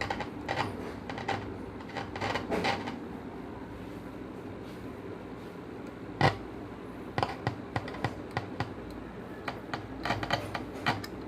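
Irregular small clicks and taps of handling as a multimeter's probes are put to the terminals of a rewound 8-inch speaker to check its coil, with one louder click about six seconds in.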